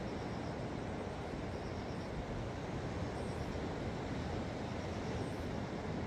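Sea surf washing in on the shore: a steady low roar with no separate wave breaks standing out.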